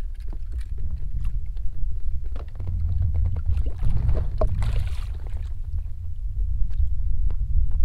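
Water splashing and small knocks as a wooden landing net is dipped into the lake and a hooked brook trout is netted beside the boat. The biggest splash comes about four and a half seconds in, over a steady low rumble.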